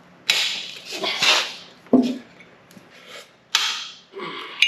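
Hand tools working on a two-stroke motorcycle's cylinder head, its head nuts being taken off: several short rasping scrapes and one sharp click about two seconds in.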